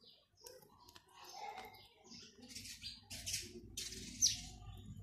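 Stranded wire being twisted by hand into a joint: a run of short rustling, scraping strokes in the second half, the loudest just after four seconds. Birds chirp in the background.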